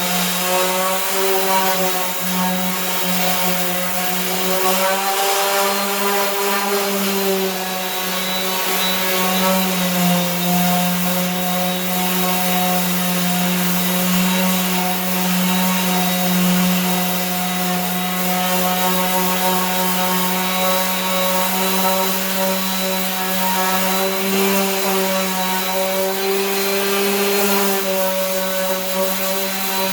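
Power sander running steadily with 80-grit paper on hardened body filler, a motor hum with abrasive rubbing over it; the pitch wavers a little as the sander is pressed and moved across the fender.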